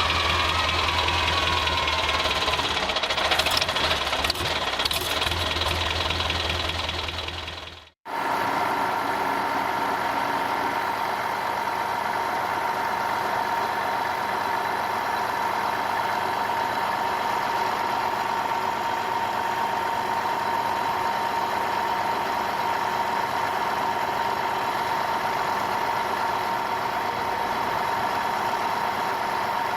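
Vehicle engine running steadily with a low hum. It cuts off sharply about eight seconds in, and a different steady engine sound with a held mid-pitched tone takes over.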